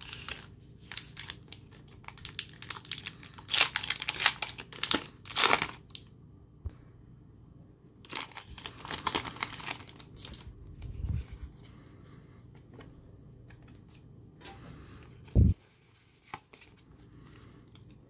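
A foil Pokémon booster pack wrapper being torn open and crinkled in the hands in loud bursts, then trading cards being handled more quietly. A single dull knock about fifteen seconds in.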